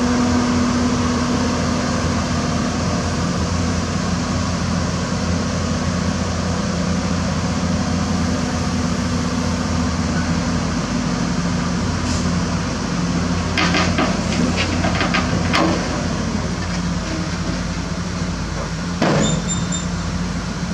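Hyundai Robex 220-9SH crawler excavator's diesel engine running steadily as the machine crawls up steel ramps onto a truck bed. Its steel tracks give a few sharp metallic clanks about two-thirds of the way in and one more near the end.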